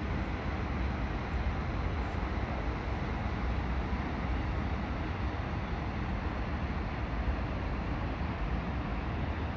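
Steady outdoor city background noise: a deep, even rumble with a hiss over it, and no distinct events.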